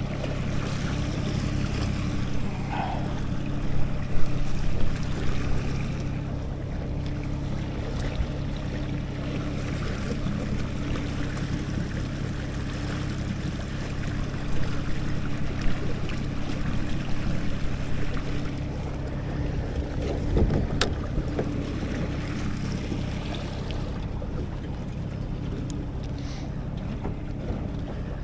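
Boat motor running steadily at slow trolling speed: a constant low hum under water wash and wind on the microphone, with a few brief louder bumps.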